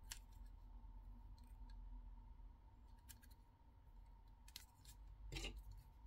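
Faint, scattered clicks and light rubbing from handling a hair clipper and its packaging, with the clearest click about five and a half seconds in.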